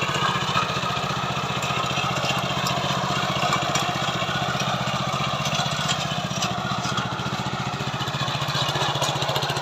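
Small engine of a KB-365 mini tiller running steadily, with rapid, even firing pulses.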